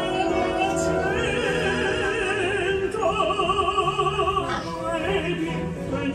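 Opera music: a singer holding long, wavering notes with strong vibrato over orchestral accompaniment.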